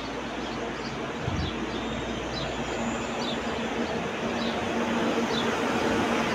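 Athens Metro Line 1 electric train pulling out past the platform, its wheels rumbling on the rails over a low motor hum, growing louder as it gathers speed, with a thump about a second in. A bird chirps repeatedly over it.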